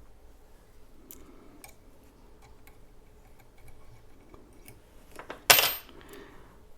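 Small metal parts and hand tools being handled, with scattered light clicks and one louder clatter about five and a half seconds in.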